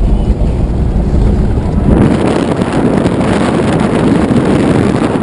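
A vehicle driving on a gravel road: a steady low rumble heard from inside the cab, then, about two seconds in, a sudden change to a harsher rush of wind buffeting the microphone over the road noise.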